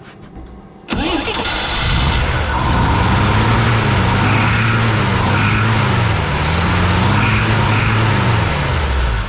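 The 1968 Jeep Gladiator's straight-six engine starts about a second in, runs while being revved up and down several times, and shuts off near the end. Its carburetor is flooding and leaking fuel, with the float needle suspected stuck open.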